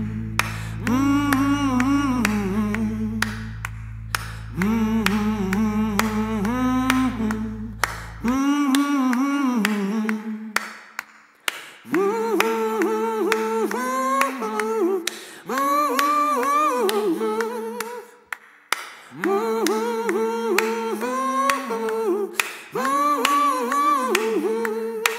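Background music: a song with a singing voice in phrases, accompanied by sharp clicks. A low sustained bass tone stops about eight seconds in, leaving the voices and clicks.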